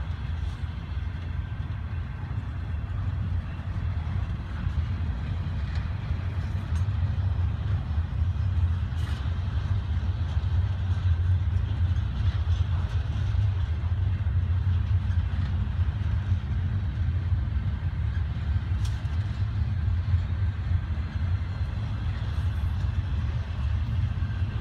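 Double-stack container train rolling past: a steady low rumble of steel wheels on the rails under the loaded well cars, slowly growing a little louder, with a few sharp clicks.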